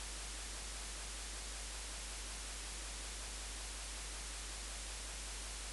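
Steady hiss of a microphone's noise floor with a low hum beneath it, unchanging throughout, and no other sound.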